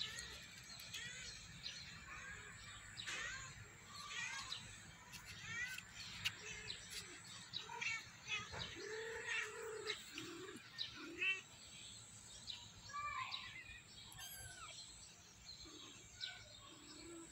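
Young kittens mewing faintly and repeatedly, with small birds chirping throughout.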